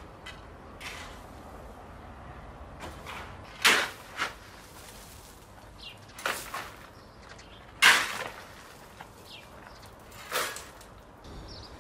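Shovel digging into a heap of gravel and tossing it into a wheelbarrow: short scraping strokes about every two seconds, two of them louder.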